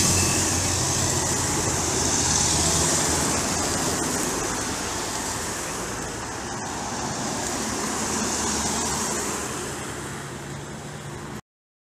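Cars passing on a road one after another, tyre and engine noise swelling and fading as each goes by. The sound cuts off abruptly near the end.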